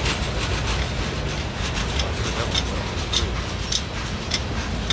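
Freight cars of a long CSX mixed freight train rolling past: a steady low rumble of steel wheels on rail. From about two seconds in, sharp wheel clicks come roughly every 0.6 seconds.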